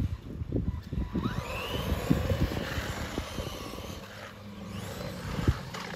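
Small electric RC truck running over rough ground: its brushless motor whines and rises in pitch as it speeds up, over a run of knocks and clatter from the wheels and chassis. A single sharp knock comes near the end.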